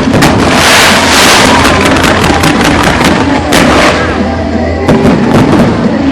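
Fireworks going off over music: a dense crackling burst about a second in, followed by a string of sharp bangs.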